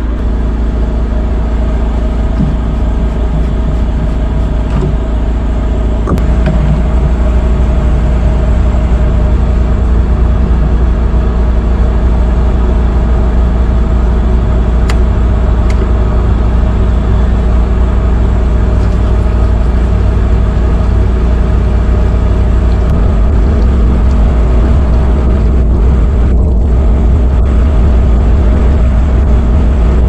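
Steady low rumble of a running vehicle engine, close by and loud, stepping up slightly about six seconds in. No pouring of fuel stands out over it.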